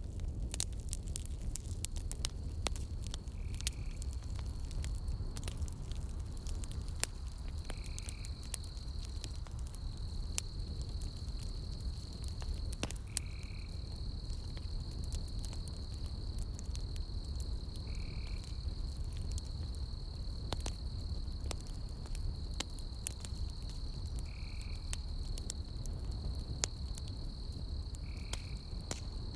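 Campfire burning: logs crackling and popping over a low rumble. A steady high insect trill runs behind it, and a short call sounds six times, about every four to five seconds.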